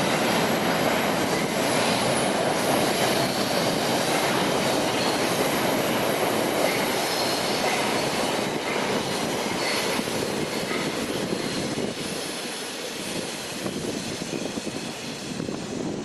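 Train rolling past, its steel wheels squealing on the rails with some clatter, the sound easing off somewhat near the end.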